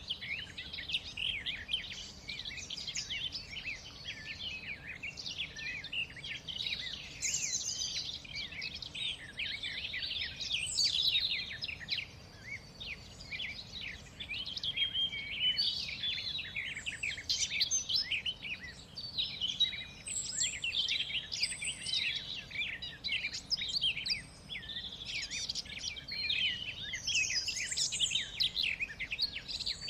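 A chorus of songbirds chirping and singing continuously, many rapid overlapping calls, over a faint outdoor hiss.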